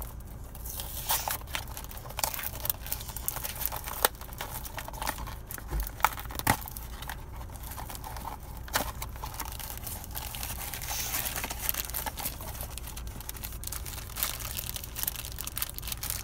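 Foil blind bag of a Funko Mystery Mini crinkling as it is handled and squeezed to feel the figure inside, with a few sharp clicks and snaps.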